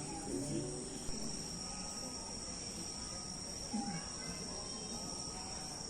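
Steady high-pitched chorus of night insects, crickets or cicadas, with faint human voices far off underneath.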